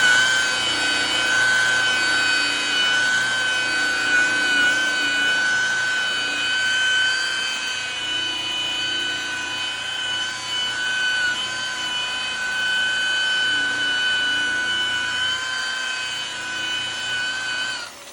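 Makita rotary buffer with a wool pad running at speed, cutting a headlight lens with heavy cutting cream: a steady, high, multi-toned whine. It finishes spinning up at the very start and cuts off just before the end.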